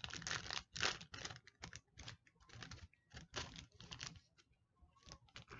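Irregular clicks and taps of objects being handled close to the microphone, a few of them sharper and louder.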